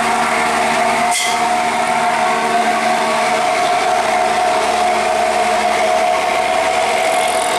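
Heavily loaded truck's diesel engine labouring up a steep hairpin climb in low gear, a loud steady drone that holds one pitch. There is one short sharp click about a second in.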